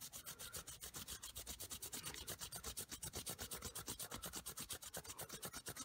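A cotton ball soaked in nail polish remover is scrubbed quickly back and forth over a sneaker's white midsole. It makes a faint, even rubbing of rapid, regular strokes.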